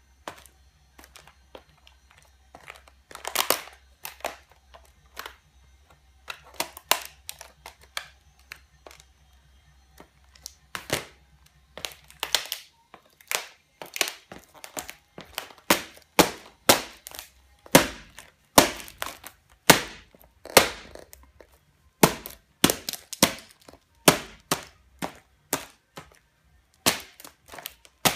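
High heels treading on an old laptop's plastic case, screen and keyboard: a string of sharp clicks, creaks and cracks of stressed plastic. They are sparse at first and come about once or twice a second from about halfway on.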